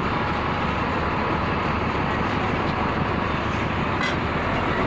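Steady rumble of a vehicle engine running nearby, with a few faint scrapes of shovels in sand and gravel.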